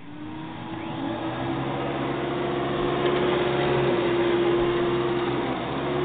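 Hoover Dimension 1000 vacuum cleaner motor spinning up and running: a steady whine that climbs a little in pitch and grows louder over the first couple of seconds, then holds steady.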